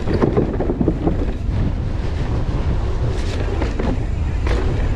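Wind buffeting the microphone of a camera on a mountain bike riding downhill, over tyres running on dirt, with a few knocks and rattles from the bike over bumps.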